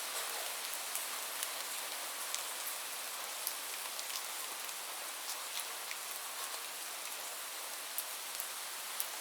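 Heavy rain falling steadily, a dense even hiss with scattered sharper drops hitting a surface now and then.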